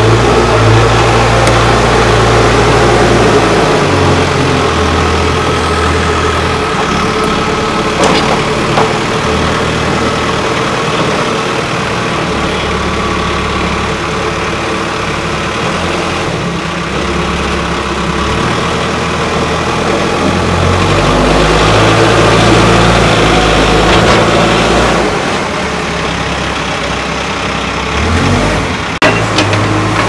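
Case 770 EX backhoe loader's diesel engine running, its pitch shifting up and down as the revs change while the machine drives and works. There is a clank about eight seconds in and a few knocks near the end.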